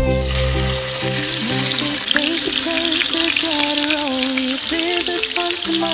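Food sizzling in a frying pan, a steady hiss that starts right at the beginning, with a song's melody playing over it.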